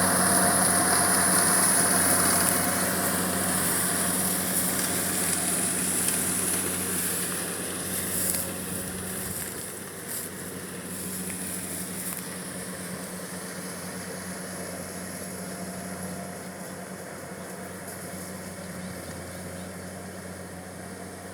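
Rice harvester's engine running with a steady hum, fading gradually as it goes on.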